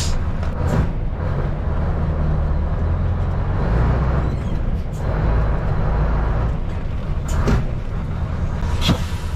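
Scania 530 V8 diesel truck engine idling, heard from inside the cab: a steady low rumble that swells a little in the middle, with a few short clicks near the end.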